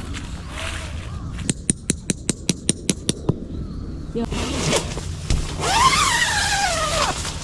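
Camping tent being handled: a quick run of about a dozen sharp clicks, then a longer rustling scrape with a whine that rises and falls near the end.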